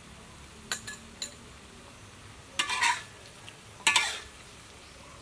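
Metal spoon and ladle clinking and scraping against a metal pan of stir-fried vegetables: two short sharp clinks about a second in, then two longer, louder scrapes near the middle and end.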